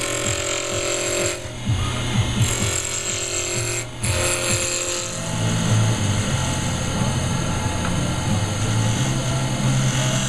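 Jet wood lathe running while a hand-held turning tool cuts the spinning English walnut pen blank, a steady motor hum under a hissing cutting noise. The cutting noise breaks off briefly twice, about a second and a half and four seconds in.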